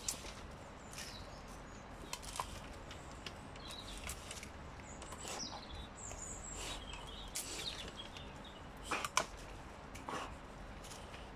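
An American bully dog biting and tearing at a thin tree trunk: scattered cracks and snaps of wood and bark, with a few high squeaks in the middle and the sharpest snaps a little after.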